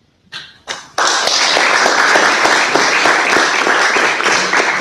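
Audience applauding: two or three scattered claps, then full applause from about a second in.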